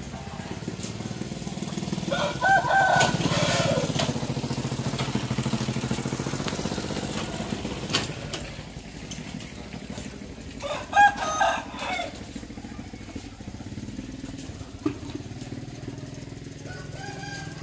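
A rooster crowing: one long crow about two seconds in, another about eleven seconds in, and a third starting near the end. A motor vehicle's engine hums in the background through the first half.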